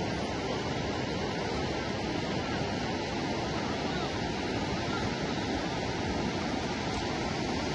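Muddy flash-flood water rushing steadily, a continuous even rush of moving water.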